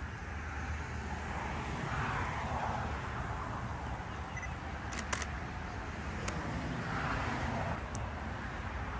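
Road traffic: a steady low rumble as cars pass, swelling about two seconds in and again near the end, with a few sharp clicks in the middle.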